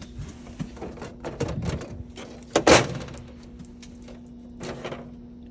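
Rear cover panel of a Canon imageRUNNER 3530 copier being slid and worked off its mounts, giving a series of clicks and rattling knocks with one loud knock about two and a half seconds in, over a steady low hum.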